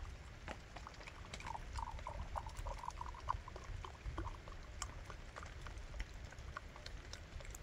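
Light rain pattering in scattered drops over a steady low rumble, with a brief run of faint squeaky sounds about a second and a half in.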